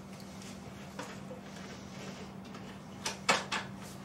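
Track-saw guide-rail clamps being loosened and the aluminum guide rail handled on the workpiece: a few faint clicks, then a quick cluster of sharper clicks and knocks a little after three seconds in, over a steady low hum.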